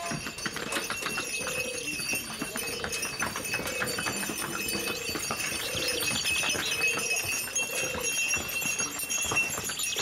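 Hooves of laden pack animals clopping irregularly on stone steps, with a short tone repeating about once a second behind them.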